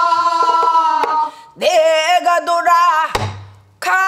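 A woman singing a Korean folk song in a strong, open throat: a long held note, then a phrase with wide, wavering vibrato. About three seconds in, one deep stroke on a buk barrel drum rings out briefly before the singing picks up again.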